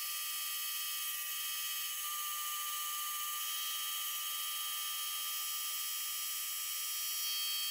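Bridgeport vertical mill's end mill taking a light, conservative pass along the side of a cast aluminium 6-71 blower case: a steady high whine of several held tones over a cutting hiss.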